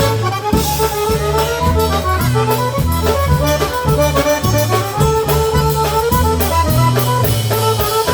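Live polka band playing an instrumental passage, with accordion carrying the melody over a bass line and steady drums.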